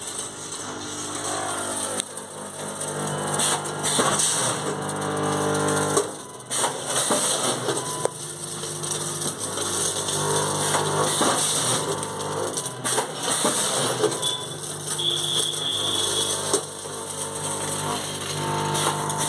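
A snack packing machine with vibratory feeder trays running: a steady hum, with occasional sharp clacks from its mechanism.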